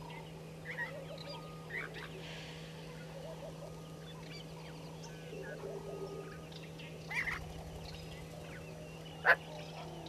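Scattered short bird calls and chirps over a steady low hum, with one sharp, loud call about nine seconds in.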